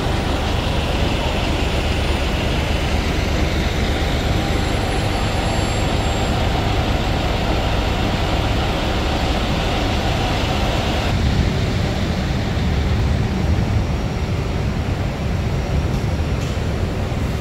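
Double-decker bus running: a steady low rumble of engine and road noise, with the hiss above it dropping away suddenly about eleven seconds in.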